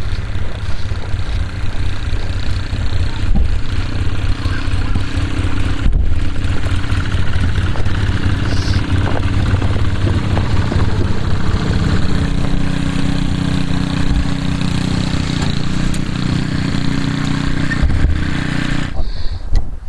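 Polaris Sportsman ATV engine running steadily, its pitch shifting a little partway through; the sound stops abruptly about a second before the end.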